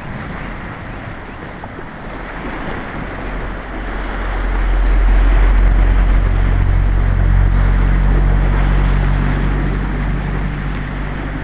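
Choppy river water rushing past the bank as the tide floods up the River Trent behind the Aegir tidal bore. A low engine hum swells in about four seconds in and slowly fades.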